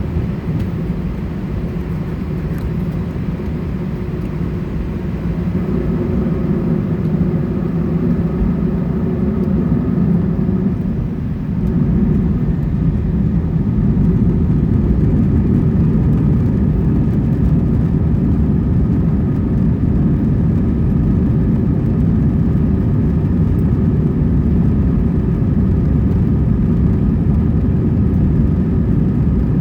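Airbus A320's jet engines heard from inside the cabin: a steady low rumble with a few whining tones on top. It grows louder about eleven seconds in as thrust comes up for takeoff, then holds steady.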